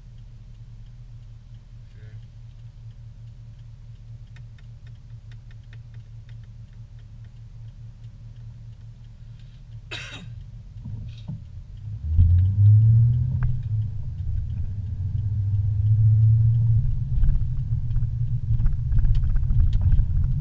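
Car heard from inside the cabin: the engine idles with a low hum, then the car pulls away about twelve seconds in and the low engine and road rumble grows louder. A run of faint ticks comes a few seconds in, and a single sharp crack near the ten-second mark.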